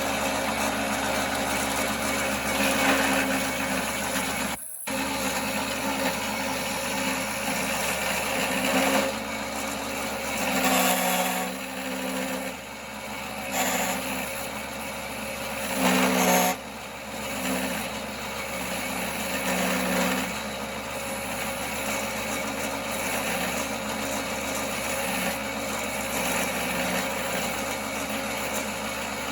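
1939 Pow-R-Kraft wood lathe running steadily, with the sound of a tool cutting the spinning wood swelling and easing every few seconds. It cuts out for a moment about five seconds in.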